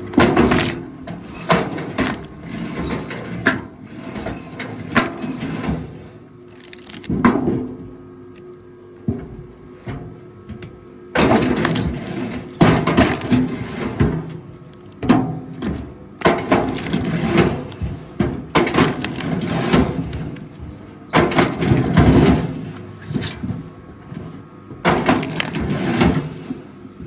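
Rail log splitter forcing logs apart: high squeaks in the first few seconds, then repeated loud bouts of wood cracking and splitting with short pauses between.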